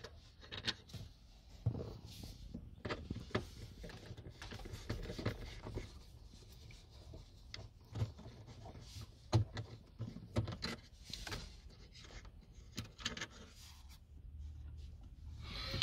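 Scattered light clicks, taps and scrapes of hands handling a VW Tiguan Mk2 digital instrument cluster screen and the hard plastic dashboard trim around it.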